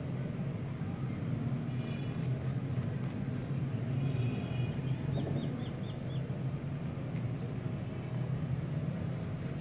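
A steady low mechanical hum, like a running motor or engine, with faint high bird chirps over it, including a quick run of five short chirps about five seconds in.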